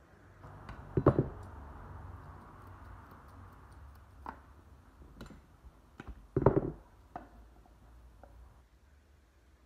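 Grooming scissors snipping at the synthetic hair of a model dog head: a few scattered sharp clicks, with two louder clattering knocks about a second in and again about six and a half seconds in.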